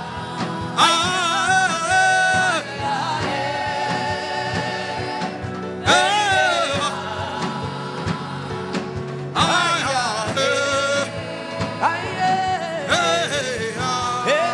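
Gospel worship song: a voice singing long phrases with wavering pitch over instrumental backing with a steady beat.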